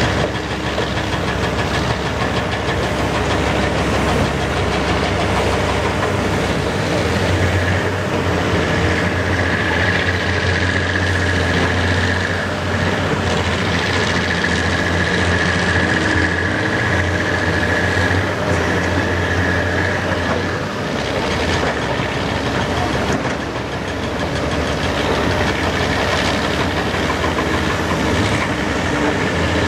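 Caterpillar 385B LME mass excavator's diesel engine running steadily under load while it digs, with a deep hum that swells for long stretches and a high whine that comes and goes over it.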